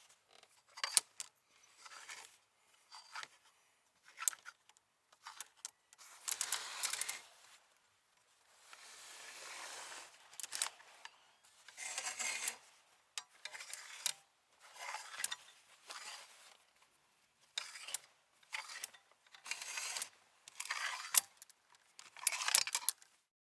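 Clothes hangers being pushed and slid along a closet rod: irregular clicks and clatters as the hangers knock together, with short scrapes and a longer sliding scrape about nine to ten seconds in.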